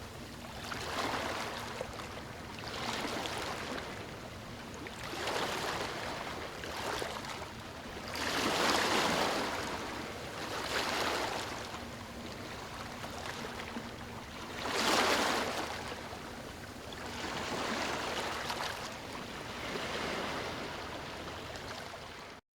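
Ocean waves washing in on a shore, the surf swelling and falling back every two seconds or so, with two bigger breakers about nine and fifteen seconds in. The sound cuts off suddenly just before the end.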